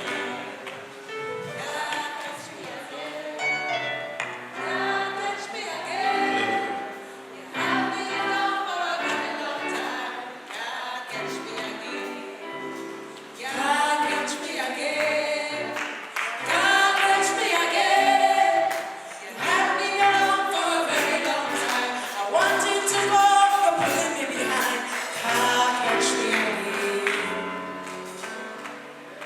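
Gospel singing: voices carry a melody over musical backing, growing louder about halfway through.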